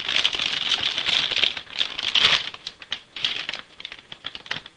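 Crinkling and crackling of a metallized anti-static bag being opened and a graphics card pulled out of it: a dense crackle for the first two and a half seconds or so, then scattered crackles.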